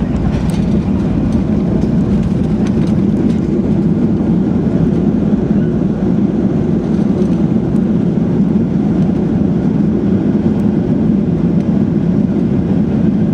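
Steady low cabin rumble of a Boeing 737-800 with its CFM56 engines running, heard from inside the passenger cabin.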